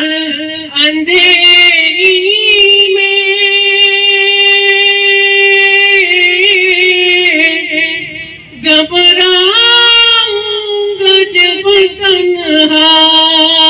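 A man singing a naat unaccompanied, drawing out long held notes with ornamental turns and no words, with a short break for breath about eight seconds in.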